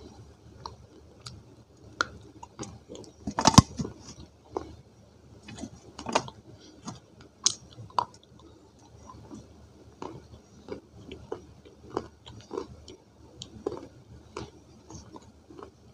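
Multani mitti (Fuller's earth clay) pieces being bitten and chewed, close to the microphone: a run of sharp, crisp crunches and crackles. The loudest cluster of bites comes about three and a half seconds in.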